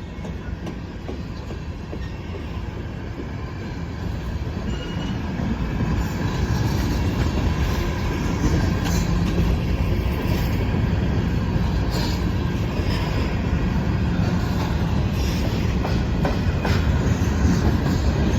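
Norfolk Southern manifest freight train rolling through a grade crossing: a heavy rumble of the cars and wheels that grows louder over the first several seconds, then holds steady, with a few sharp clanks and a brief wheel squeal.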